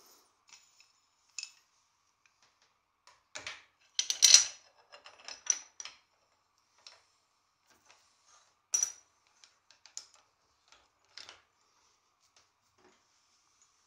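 Scattered metal clicks and clinks from a Park Tool HHP-3 headset bearing press being handled and turned on a bike's head tube. A loud cluster of knocks comes about four seconds in and another near nine seconds.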